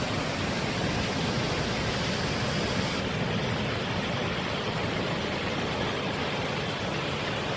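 A river in flood rushing past: a steady, even roar of fast-moving water.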